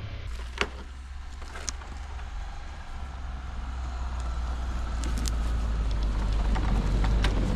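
Kei truck engine running while driving, a steady low drone that grows louder over the second half, with a few sharp clicks and knocks from the truck over rough ground.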